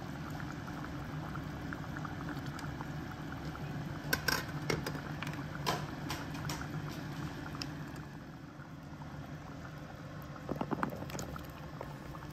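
Thick coconut-milk red curry simmering in a stainless steel saucepan, with bubbles popping irregularly over a steady low hum. The curry is being stewed to make the venison and beef tender.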